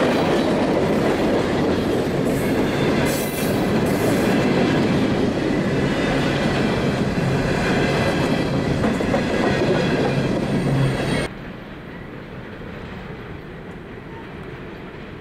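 Freight train of coal hopper cars rolling past close by, steel wheels clattering over the rails, with brief high-pitched wheel squeals about three to four seconds in. About eleven seconds in the sound drops suddenly to a fainter rumble of the train heard from farther off.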